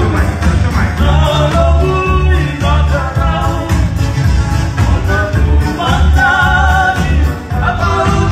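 Live band playing a song through a PA: singing over electric guitar and keyboard, with a strong, pulsing bass.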